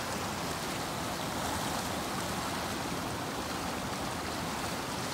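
A small stream flowing close by: a steady, even rush of water.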